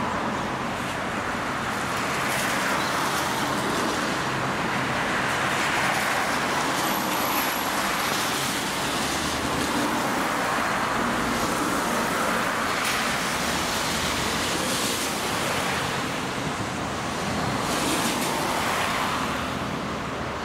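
Steady road-traffic noise, swelling and fading every few seconds as vehicles pass.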